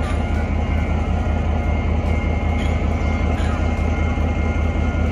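Taiwan Railway R157 diesel-electric locomotive's engine idling steadily with a deep, even rumble, a faint steady whine above it, while the locomotive rides the turning turntable.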